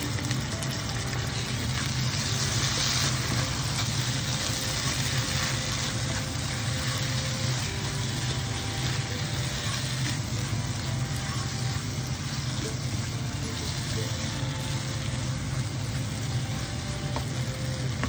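Oil sizzling steadily in a pan as a banana-leaf-wrapped pearl spot fish parcel pan-fries, over a steady low hum.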